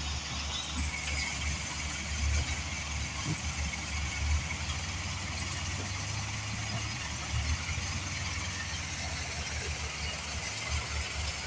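Heavy equipment's engine running steadily at low speed, with a pulsing low rumble.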